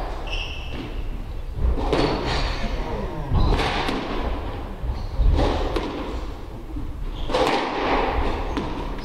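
Squash rally: the ball is struck by rackets and slams against the court walls, sharp thuds every second or two.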